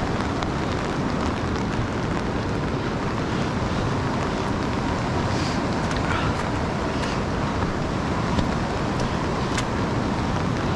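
A river running high and fast over rapids, a steady, even rush of water.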